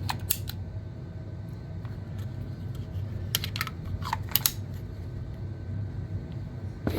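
Light clicks and short scrapes of a pistol and its magazine being handled: a few clicks at the start, a cluster about three seconds in, then two quick sliding scrapes. A steady low hum runs underneath.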